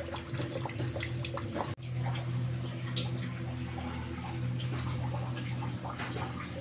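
Water running and dripping, with small splashes and clicks, over a steady low hum. The sound breaks off for an instant just under two seconds in and then carries on the same.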